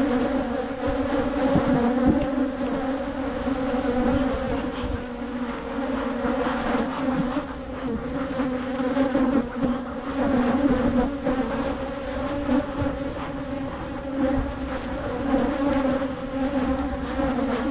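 A colony of agitated honeybees buzzing loudly around an open hive, a steady, dense hum: the angry, defensive sound of an upset colony.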